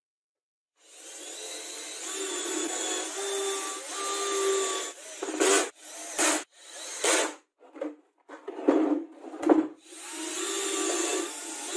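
A 20V cordless drill running under load into the edge of melamine-faced chipboard. It starts about a second in as a steady whine for roughly four seconds, then comes in about six short trigger bursts, then runs steadily again near the end.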